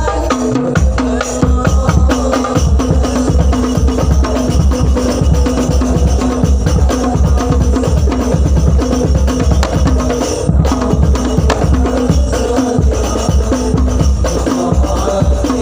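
Music: an instrumental passage of a devotional song, with steady rhythmic drum and tambourine percussion over sustained tones.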